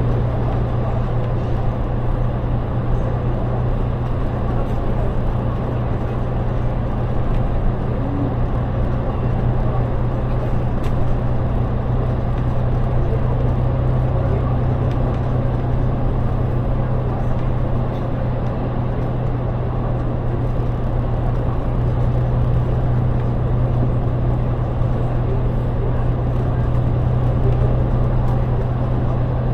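Steady interior drone of a double-decker bus cruising through a road tunnel: engine and tyre noise with a strong, even low hum and no changes in pace.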